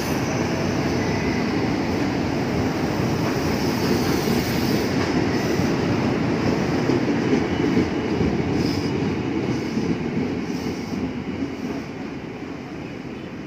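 KRL Commuter Line electric train, a stainless-steel multiple unit, running past close by along the platform, a steady rumble of wheels on rail that fades away over the last few seconds as it moves off.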